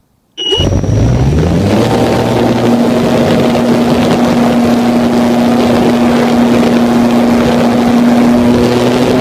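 RC airplane's motor and propeller starting abruptly and spinning up over about a second and a half to a steady high drone, with heavy wind rush, heard from a phone mounted on the plane. It cuts off suddenly near the end.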